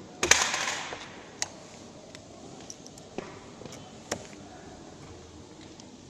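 A hand screwdriver driving a screw into an aluminium bracket on a skylight frame. A loud scraping burst under a second long comes just after the start, then a few sharp metallic clicks spread over the next few seconds.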